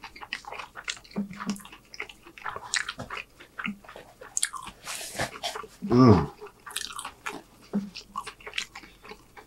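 Close-miked chewing of a mouthful of chicken, chili pepper and noodles, with wet mouth clicks and smacks throughout. About six seconds in comes one short, loud vocal sound from the eater, the loudest thing here, just after a brief breathy hiss.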